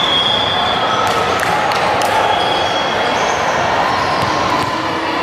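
Busy indoor gym hall: a steady hubbub of voices, a few short high squeaks and several sharp knocks of balls bouncing on the hardwood floor.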